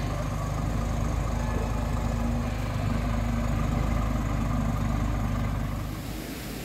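Scania R540's V8 diesel engine idling steadily while the truck stands still, a low even hum with no revving. The sound drops off abruptly about six seconds in.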